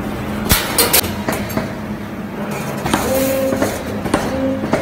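CNC wire-bending machine forming a steel-wire coat hanger. A quick cluster of sharp metallic clicks and clanks comes about half a second to a second in, with a few more after. Near the end, two short bursts of steady motor whine sound as the bending head works the wire, all over a steady machine hum.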